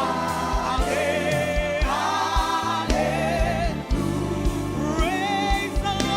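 Gospel worship music: voices singing long held notes with vibrato over a band, with low drum beats.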